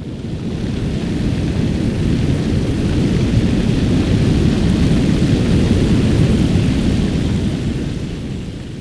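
Fireball whoosh sound effect: one long rush of fire that swells up from nothing, holds strong through the middle, then slowly fades away.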